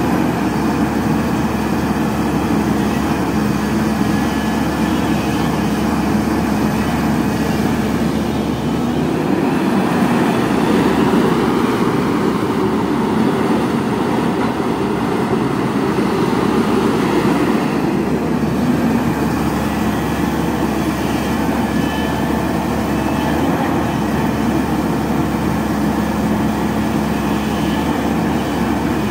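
Cat 320D tracked excavator's diesel engine and hydraulics running steadily as it digs, a little louder for several seconds in the middle.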